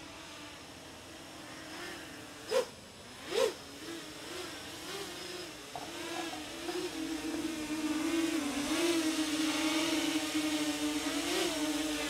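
An FPV quadcopter's motors spin two-bladed 7-inch DalProp Fold 2 propellers on an oversized 3D-printed eight-blade hub, making a harsh buzzing drone like a horde of angry bees. The pitch wavers with throttle. Two sharp throttle blips, about two and a half and three and a half seconds in, send the pitch up and back down. The hum grows steadily louder as the drone comes closer.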